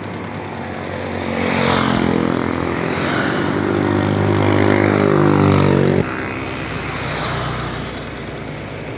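Tour bus's diesel engine running and pulling away, its pitch rising slowly. The engine sound cuts off abruptly about six seconds in and gives way to a rougher, lower engine note.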